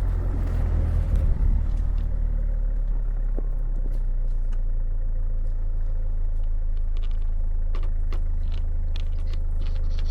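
Four-wheel-drive truck's engine running with a steady low drone, with light scattered clicks over it in the second half.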